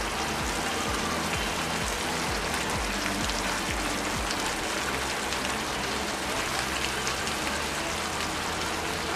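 Boneless chicken in a thick red chilli-ketchup sauce simmering and sizzling in a nonstick frying pan: a steady hiss.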